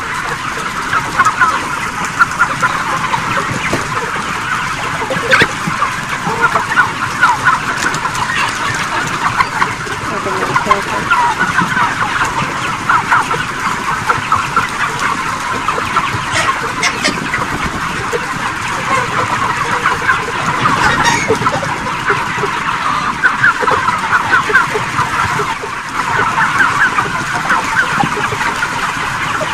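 A large flock of broiler chickens calling together: a dense, unbroken chatter of many short overlapping clucks and cheeps.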